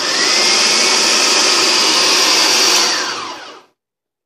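Electric food processor motor running loud and steady as its blade chops bell pepper, jalapeño and onion, then winding down and stopping about three and a half seconds in.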